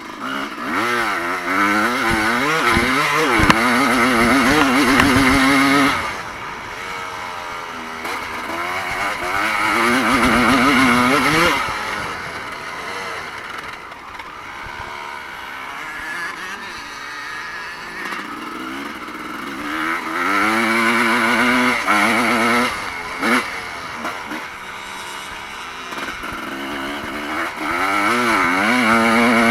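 Evo-class motocross motorcycles racing, engines revving up and falling back through throttle and gear changes. The sound swells four times, loudest in the first six seconds, around ten seconds in, just after twenty seconds, and near the end, with quieter distant engine noise in between.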